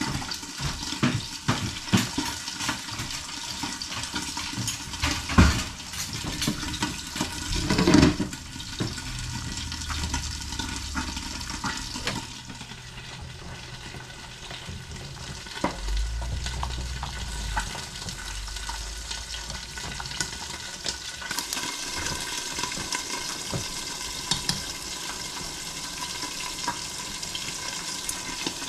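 Food frying and sizzling in a pan as it is stirred, with many scattered clicks and knocks of the utensil against the pan.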